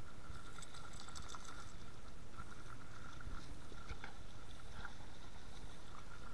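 Dogs wading through a shallow, gently flowing river, with faint splashing and a few soft clicks over a steady low rumble and a faint steady high hum.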